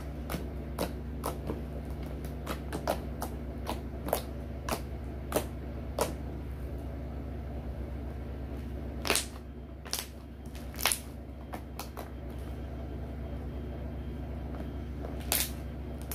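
Glue-and-borax slime being kneaded, squeezed and stretched by hand, making irregular sticky clicks and pops, with a few louder pops about nine to eleven seconds in and again near the end. A low steady hum runs underneath.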